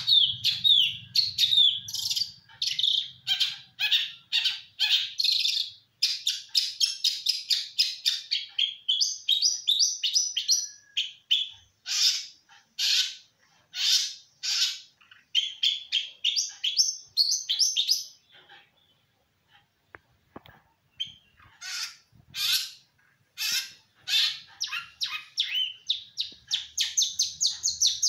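Songbird singing long runs of rapid, high chirping notes, breaking off for a few seconds past the middle before starting up again.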